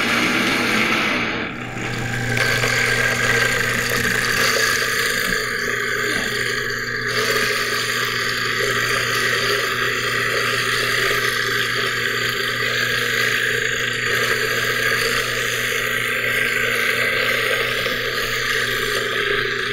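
High-speed blender running steadily, churning soaked macadamia nuts and water into a thick paste that keeps clinging to the jar walls. There is a brief dip in level about a second and a half in.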